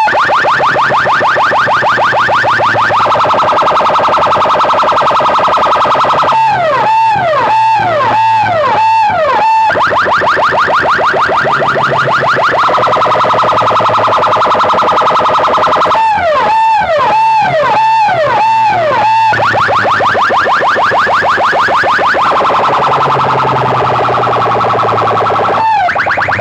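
Electronic siren effects played loud through a village PA rig of stacked power amplifiers and horn loudspeakers. A cycle repeats about every ten seconds: a few warbling up-and-down wails, then a fast run of rising chirps, then a held buzzing tone.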